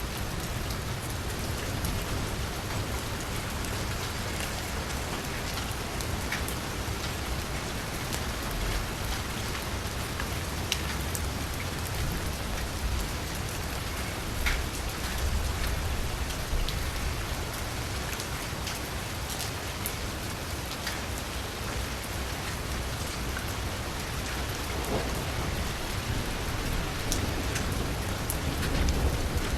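Steady rain falling on a street, a dense even patter with scattered individual drop ticks. Near the end a low rumble of thunder starts to build.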